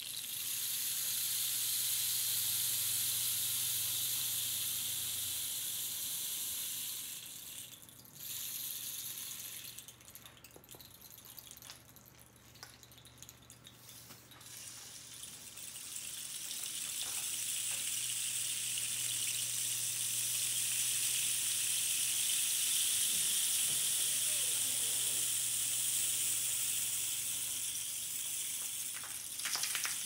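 Rainsticks tipped end over end, the filling trickling down through the tube in a long, even rain-like hiss. The first pour fades about seven seconds in, a quieter patter follows, and a second rainstick's pour starts around sixteen seconds in and runs most of the rest, with a few handling clicks near the end.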